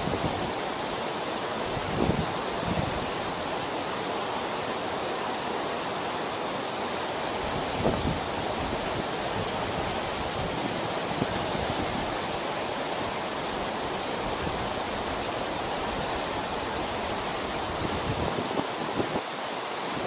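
Shallow mountain river rushing over rocks and riffles, a steady even rush, with a couple of brief low bumps about two and eight seconds in.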